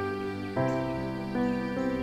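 Soft, sad background music: sustained chords whose notes change about half a second in and again near the middle.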